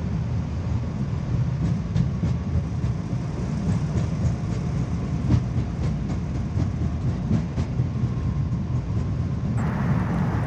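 Boeing 787 on its takeoff roll, heard from the flight deck: a steady low rumble of engines and wheels on the runway, with irregular thumps and clicks as the gear runs over the pavement. Near the end the sound turns suddenly brighter and hissier.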